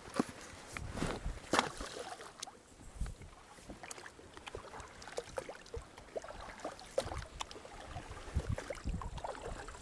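Irregular light splashes and knocks of water as plastic duck decoys are set out from a small inflatable boat and an oar dips beside it.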